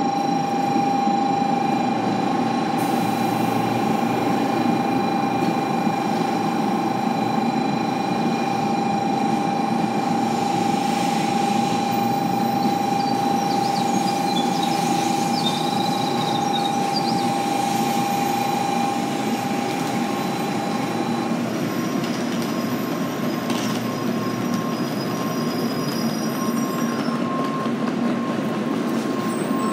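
N700A Shinkansen train standing at the platform: a steady electrical hum with a constant pitched tone that cuts off about twenty seconds in, after which a slightly higher steady tone carries on.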